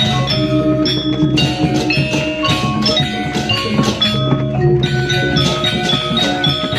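Balinese gamelan playing: bronze metallophones and gongs struck in rapid, densely packed strokes, with steady low tones beneath.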